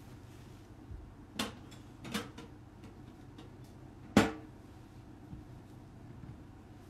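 A few sharp knocks and taps from hands handling things close to the microphone: a faint one about a second in, two more shortly after, and the loudest about four seconds in, over a low steady room hum.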